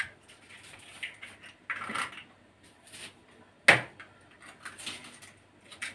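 Eggs being cracked on a small metal saucepan: a few sharp clicks and knocks, the loudest a little past halfway, with a short crackle of shell about two seconds in.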